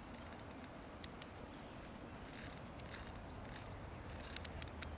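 Carp fishing reel's clutch ratchet clicking in short bursts as line is pulled off the spool a foot at a time, lengthening the depth of a zig-rig bait below its float.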